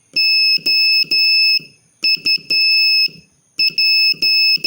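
Morse code practice tone: a high-pitched beep keyed in dots and dashes, sending the letters O (three dashes), U (dot, dot, dash) and P (dot, dash, dash, dot), finishing the word "SOUP".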